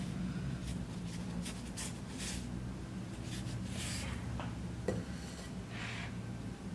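Metal spatula spreading and scraping buttercream across the top of a cake in a series of short scraping strokes, with a single sharp click about five seconds in, over a steady low hum.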